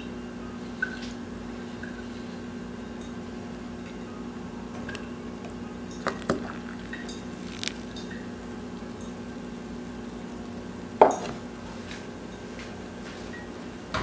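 Quiet kitchen sounds: a steady low hum with a few small clicks and taps, and one sharper clink of crockery about eleven seconds in.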